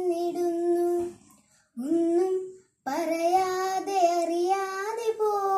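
A young girl singing a Malayalam poem in the melodic recitation style, holding long, drawn-out notes. She pauses briefly for breath about a second in and again just before three seconds.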